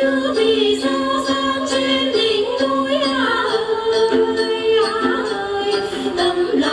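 A woman singing hát then in long held notes that bend and slide in pitch, accompanied by đàn tính, long-necked gourd lutes.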